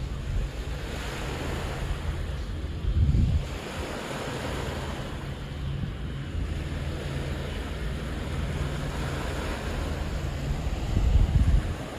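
Small waves washing steadily onto a shore, with wind buffeting the microphone in two low gusts, about three seconds in and again near the end.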